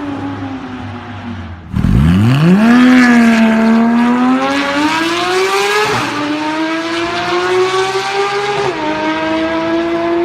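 Sports car engine accelerating hard. After an abrupt cut about two seconds in, the pitch climbs from low revs, dipping briefly at two gear changes later on.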